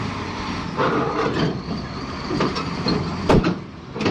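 Heavy machinery working: irregular metal squealing and clanking, with a sharp bang a little over three seconds in.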